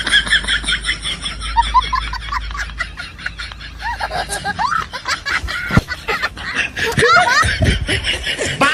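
Laughter: a run of quick, short, high-pitched laughs, one after another.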